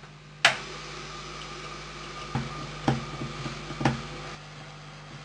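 A few sharp clicks and taps, four in all with the first the loudest, of small tools and phone parts being handled, over a steady electrical hum.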